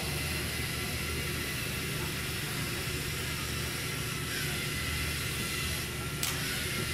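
Electric motors of a group of small LEGO Mindstorms robots whirring steadily as the robots drive together across carpet, over a steady hiss and low hum. A single sharp click about six seconds in.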